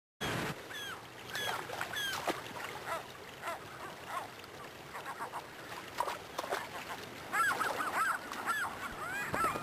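Gulls calling with many short, arched cries over the rush of a shallow river; the cries come thicker and faster near the end.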